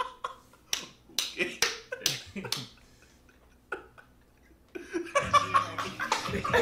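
Several short bursts of laughter, then hip-hop music with rapping starts near the end.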